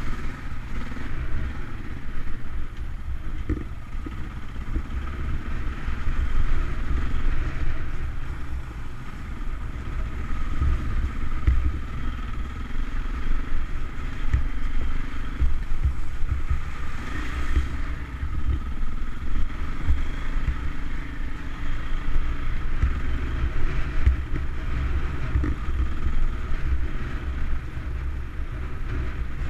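KTM enduro dirt bike engine running steadily as the bike rides along a rough, puddled lane, heard from a camera mounted on the rider.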